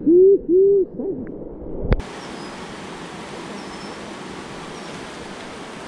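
A dog's low, muffled whining hoots: two drawn-out calls in the first second. About two seconds in, a click, then the steady rush of river water running over rocks.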